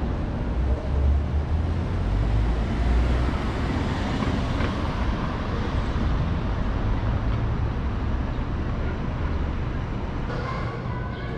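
City street traffic: cars running through an intersection, a steady rumble of engines and tyres.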